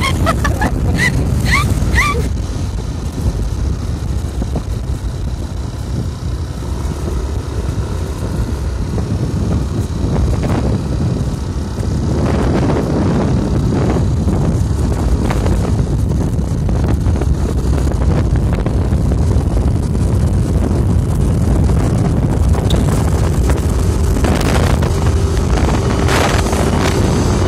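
Wind buffeting the microphone of a moving motor scooter, a steady low rumble with the scooter's engine and tyre noise running underneath.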